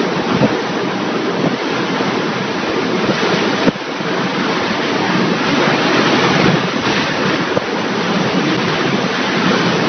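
Storm-force wind and heavy rain rushing steadily, with the gusts buffeting the microphone.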